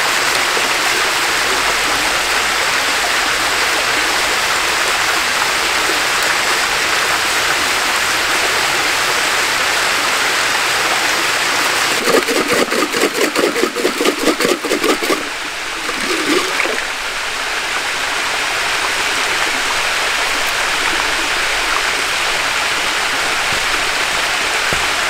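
Steady rush of a shallow creek and its small waterfall. About halfway through come three seconds of quick rhythmic splashing, about three strokes a second, as a tin can is rinsed in the water.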